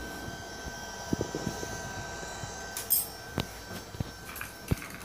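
Powered-on DJI Phantom 4 Pro on a bench: a thin, steady high whine, typical of the gimbal motors holding the camera level, over a low background hum, with a few light clicks and knocks.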